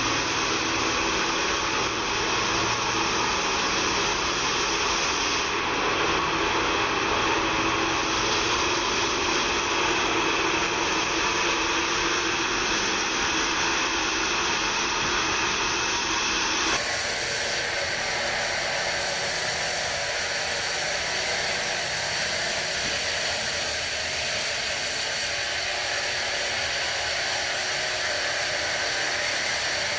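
Band sawmill running steadily: a dense hiss with a few held tones. The sound changes abruptly about 17 seconds in.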